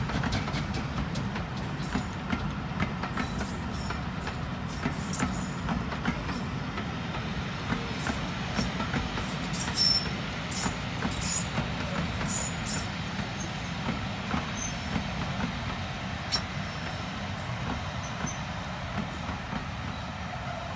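A train hauled by Foremark Hall, a GWR Modified Hall 4-6-0 steam locomotive, going past. The locomotive's fast, regular beats die away in the first second, then the train's wheels rumble past steadily with scattered clicks and short wheel squeals.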